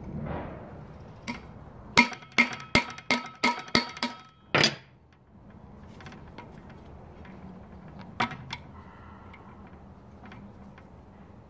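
Sharp metallic strikes on an engine valve used as a drift against a ball bearing's inner race, working the bearing off its shaft. About eight ringing clanks come quickly, roughly three a second, a couple of seconds in, and two more follow near the end.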